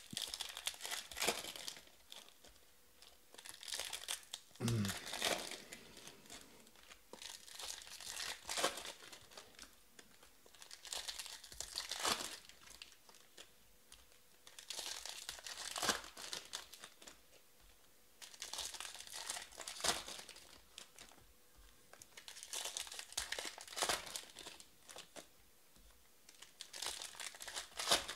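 Foil wrappers of 2020 Topps Finest baseball card packs crinkling and tearing, with trading cards rustling as they are sorted by hand, in short bursts every second or two.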